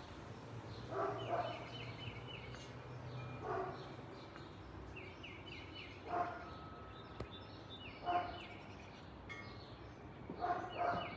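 Short animal calls repeat about every two seconds and are the loudest sounds, with brief high trills of birdsong between them. Under them runs a faint low rumble that fades after the first few seconds.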